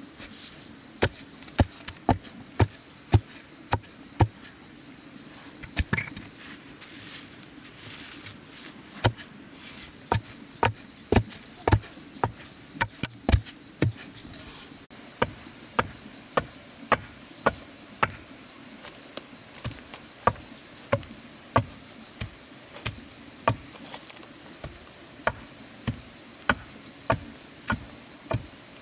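Repeated sharp blows of a hand tool, about one to two strikes a second, over a steady low hum.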